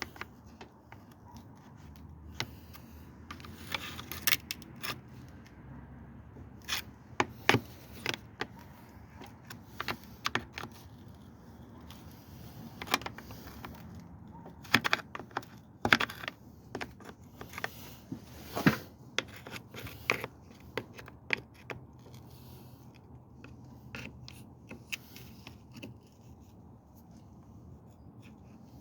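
Irregular metallic clinks, taps and scrapes, like tools and car parts being handled during repair work, with a low steady background hum.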